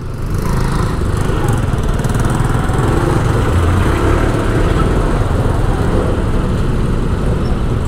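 City street traffic, with small vehicle engines such as motorcycles running steadily close by.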